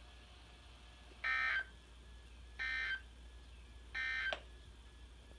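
Emergency Alert System end-of-message data tones: three short bursts of warbling digital tones, each under half a second, about a second and a half apart, marking the end of the severe thunderstorm warning broadcast.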